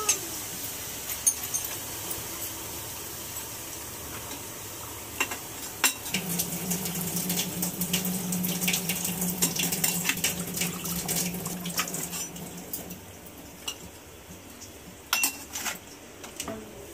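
Water being poured into a pot of paya (trotter) curry, with metal utensils clinking against the pot. A steadier stretch of pouring begins about six seconds in and lasts several seconds.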